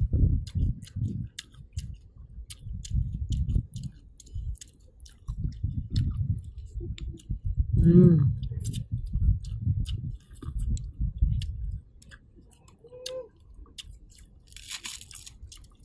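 Close-miked chewing of a person eating: soft, low pulses at about two to three a second with small wet mouth clicks. A short hummed vocal sound breaks in about halfway.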